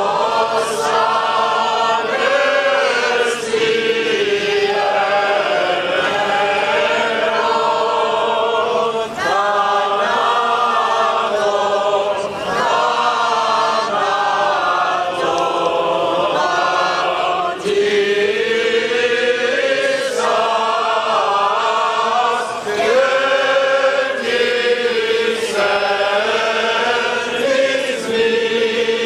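Choir chanting Byzantine church chant: a slow melody with long held, gliding notes over a steady low drone, pausing briefly between phrases.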